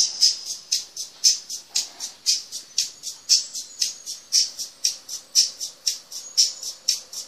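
Rapid, evenly spaced short high-pitched chirps, about four a second.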